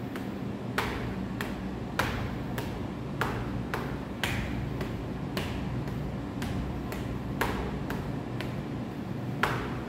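Phoenix-eye fist knuckle strikes on a wall-mounted striking board, knocking on round pads cut from shoe-heel rubber, about one and a half hits a second, some harder than others.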